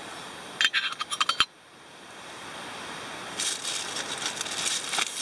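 Titanium lid clinking onto a titanium cook pot: a quick run of light metallic clinks lasting under a second. After it, a soft hiss grows from the pot heating over a lit alcohol stove.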